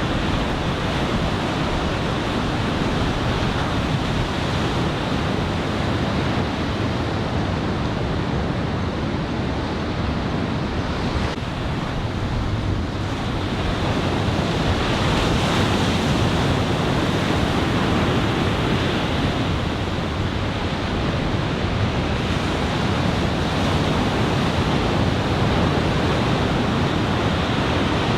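Ocean surf from a building typhoon swell breaking steadily along the shore, a continuous rush, with wind buffeting the microphone. It grows a little louder about halfway through.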